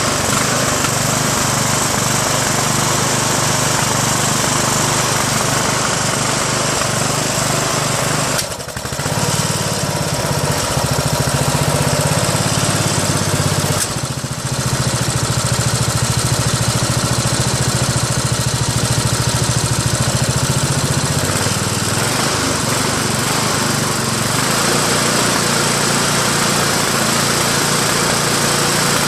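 Briggs & Stratton 15.5 hp engine of a Craftsman LT1000 lawn tractor running, faltering briefly twice and changing speed a little past two-thirds of the way in. The owner puts this uneven running down to the governor, not the magneto.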